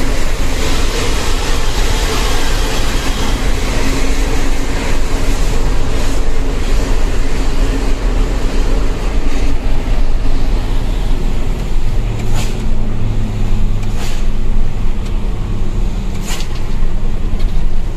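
Mitsubishi Fuso Fighter dump truck's diesel engine and road noise heard from inside the cab while driving: a loud, continuous rumble. About twelve seconds in, the engine settles into a lower, steadier note, with a few short sharp knocks near the end.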